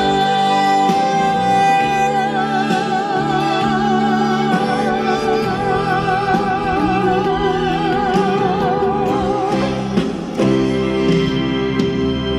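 Live slow ballad with band backing: a female singer holds one long note with a wide vibrato over sustained chords. About ten seconds in the note ends and the accompaniment carries on alone.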